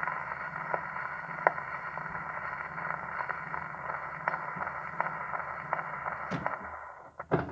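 Surface hiss and crackle of a 78 rpm shellac record turning under the needle of an acoustic gramophone with the music over, with a click about every three-quarters of a second, once per turn, as the needle rides the run-out groove. Near the end a few knocks sound as a hand works the machine, and the hiss stops.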